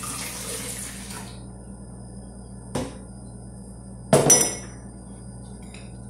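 Warm milk poured from a measuring jug into a blender jar, a splashing pour lasting about a second and a half. Then a small click, and about four seconds in a loud knock with a short ringing, as of the jug set down on the counter.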